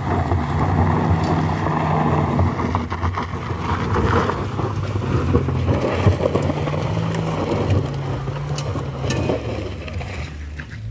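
Compact MPV engine pulling up a loose dirt-and-gravel slope as it passes close by, tyres crunching over stones and throwing up grit. The sound is loudest as the car draws level and eases as it pulls away, with a few sharp clicks near the end.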